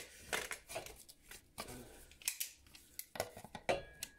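Hand PVC pipe cutter closing on a grey PVC drain pipe: a run of irregular sharp clicks as the blade is worked into the pipe.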